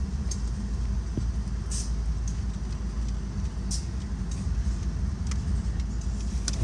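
Steady low vehicle rumble, with a few faint clicks over it.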